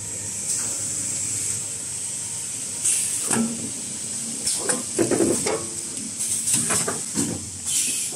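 Semi-automatic kitchen towel roll packing machine running: its pneumatic cylinders give repeated short hisses of air, and from about three seconds in the mechanism clatters and knocks between them.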